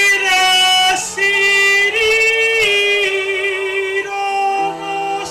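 A woman singing loud, long held notes with slides between them, over sustained accompaniment chords that change near the end.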